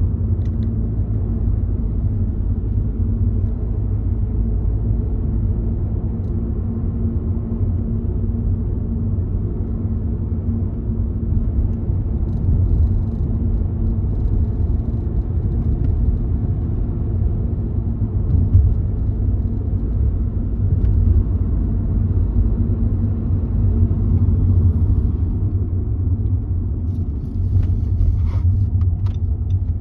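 Car road noise heard from inside the cabin while driving: a steady low rumble of engine and tyres, with a few faint ticks near the end.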